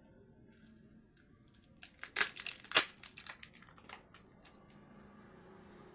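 A burst of dense crinkling and crackling clicks from handling the parts of an opened smartphone, from about two seconds in to near five seconds, loudest early in the burst.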